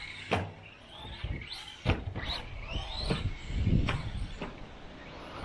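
The 2850-size 5300kv brushless motor of an LC Racing LC12B1 1/12-scale RC buggy whines in repeated rising bursts as the throttle is worked. Several sharp knocks come as the car hits and lands off the track's ramps.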